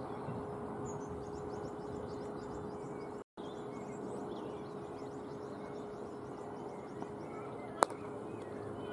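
Quiet outdoor ambience with faint bird chirps and a steady low hum, then a single sharp crack near the end: a cricket bat striking the ball. The audio drops out for a moment about a third of the way in.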